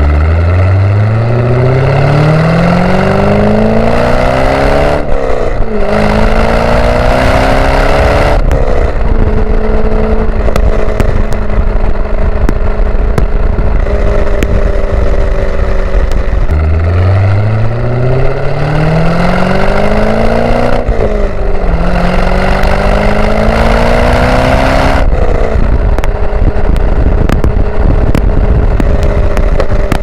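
1999 Chevrolet Corvette C5's 5.7-litre LS1 V8 exhaust, heard at the tail of the car while driving. The engine pulls up through the gears twice, its note rising and then dropping at each upshift (about 5 and 8 seconds in, and again about 21 and 25 seconds in), with steady cruising between the pulls.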